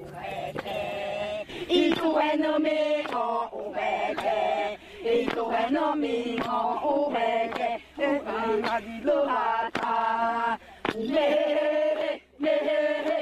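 A group of Xingu women chanting a song in unison: a repeated melodic line of held notes, broken by short pauses between phrases.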